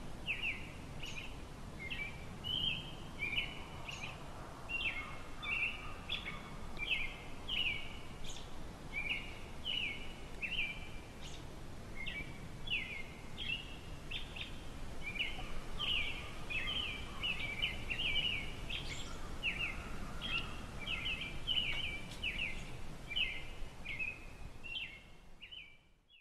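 Small birds chirping in a steady stream of short, high chirps, about two a second, over a low, even background noise that fades out at the very end.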